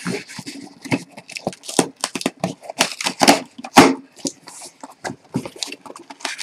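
Cardboard shipping box being opened by hand: packing tape tearing and the flaps scraping and crinkling in a run of irregular crackles and sharp snaps.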